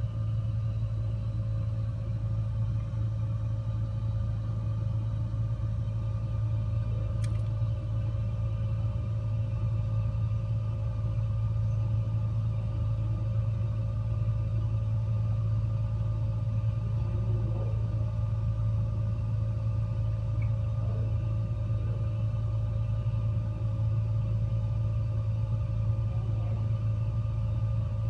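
Gas fireplace running: a steady low hum and rumble from the burner and its fan, with one faint click about seven seconds in.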